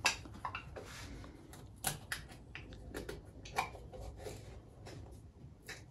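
Faint, scattered small clicks and taps with light rustling from hands working the top of a plastic bottle of coolant.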